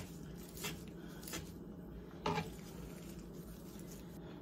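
Kitchen scissors snipping fresh rose petals, a few soft snips spaced about a second apart.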